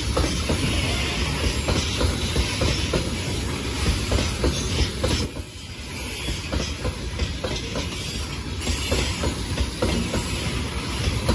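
Freight train of open gondola wagons rolling past: steady rumble and hiss of steel wheels on rail with rapid clicking from the passing wheelsets, briefly quieter about halfway through.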